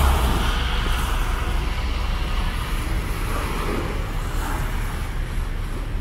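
City street traffic on wet roads: a steady wash of car engines and tyre noise with a low rumble, and a short sharp noise right at the start.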